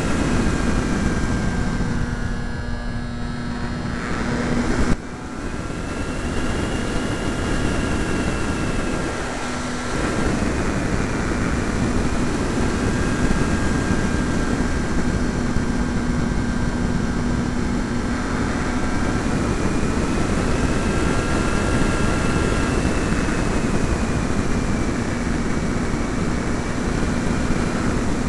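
Electric motor and propeller of an E-flite Pitts RC model biplane in flight, heard from the onboard camera as a whine mixed with rushing air. Its pitch rises and falls with throttle and airspeed, with a brief sudden dip in loudness about five seconds in.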